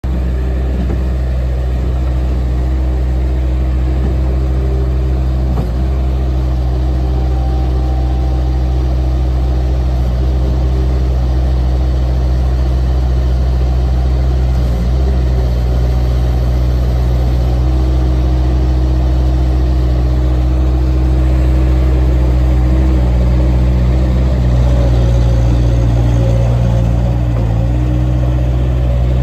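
Bobcat 763 skid steer loader's Kubota diesel engine running steadily, getting a little louder about two-thirds of the way through.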